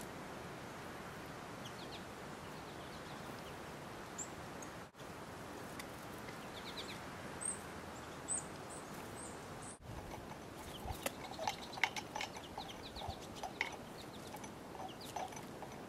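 Small wild birds chirping with short, high notes over a steady outdoor hiss; from about ten seconds in the calling gets busier, with many quick chirps and louder calls. The sound drops out briefly twice.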